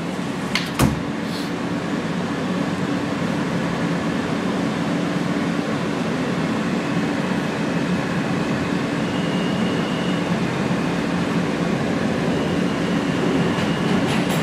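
Inside a moving R160 subway car: the steady rumble and hum of the train running along the track, getting slowly louder, with a single sharp click about a second in.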